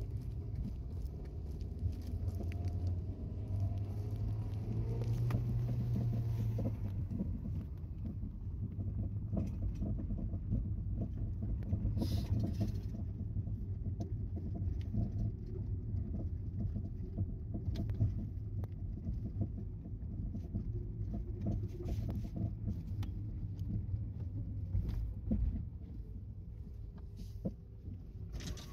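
Car interior noise while driving: a steady low rumble of road and engine, with faint scattered clicks and rattles.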